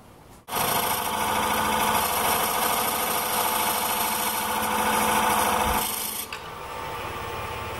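Wood lathe spinning at about 800 rpm with a hand-held turning tool cutting into the wood, a loud steady rough scraping that starts suddenly half a second in; about six seconds in the cut eases off and the lathe runs on more quietly.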